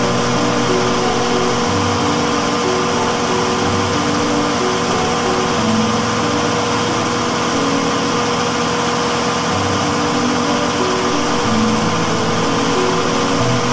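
Large generator set's engine running steadily with a constant hum.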